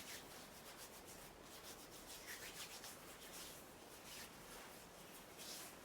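Hands rubbing together dry, as in hand-washing without running water: a faint, quick series of soft brushing strokes.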